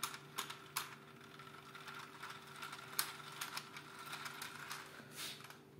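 Small electric motor spinning a Lego model plane's propeller, a faint steady hum, with irregular light plastic clicks throughout.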